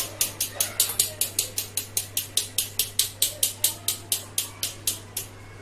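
A metal kitchen sieve rattling in quick, even clicks, about five a second, as dry cake ingredients are sifted through it, pausing briefly near the end; a steady low hum underneath.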